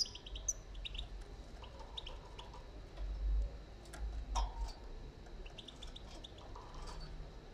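Young European goldfinch chirping in short clusters of quick, high notes, several times. A low rumble on the microphone comes about three seconds in.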